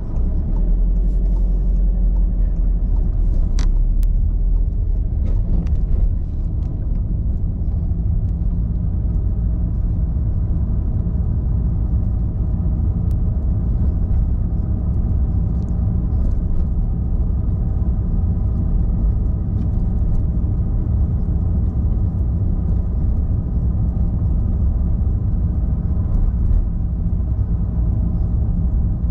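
Car driving through city streets: a steady low rumble of engine and road noise, a little louder for the first six seconds, with a few faint clicks about three to four seconds in.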